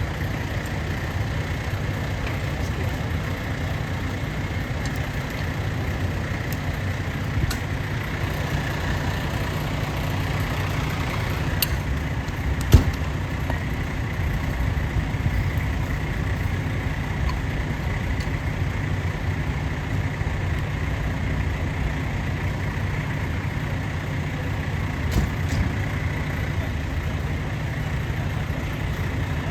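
Fire truck engine idling steadily, with a few sharp knocks, the loudest about halfway through.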